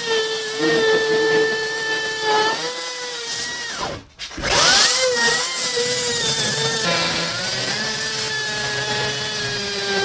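Handheld power tool's motor running at a steady speed. It stops briefly about four seconds in, then spins back up with a rising whine and runs steadily again.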